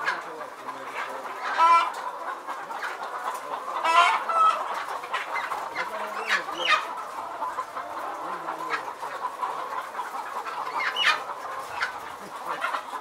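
A large flock of chickens in battery cages clucking and squawking over one another without a break. Louder squawks stand out about two and four seconds in.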